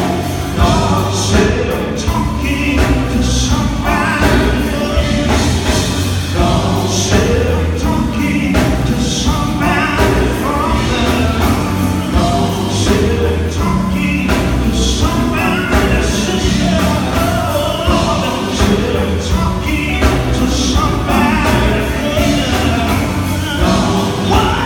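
Live gospel band playing: a lead singer on a microphone with backing singers, over electric guitar and drums, loud and steady with a heavy low end.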